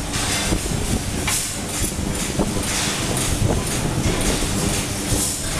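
Brake shoe welding machine at work: a steady mechanical din with a faint hum and many irregular clanks and crackles as a brake shoe is clamped and welded.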